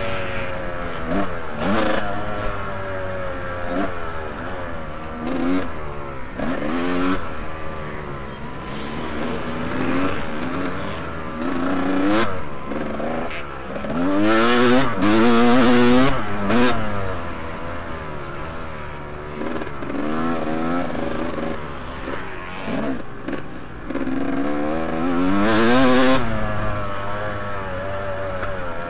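Vintage motocross motorcycles racing on the track, engines revving up and falling back as the riders shift through the gears, several bikes overlapping. The engines swell loudest as bikes pass close, about a quarter and again nine-tenths of the way through.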